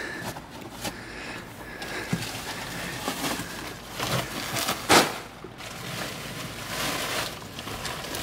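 Plastic sacks of garden soil rustling and shifting as they are lifted out of a car's cargo hatch, with one loud thud about five seconds in.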